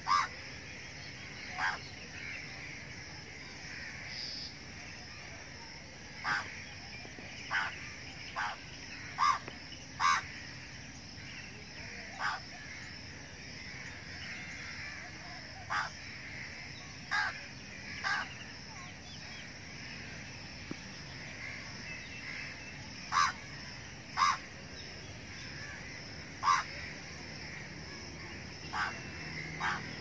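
Birds calling: about sixteen short, sharp calls at irregular intervals, over a steady high-pitched background chorus.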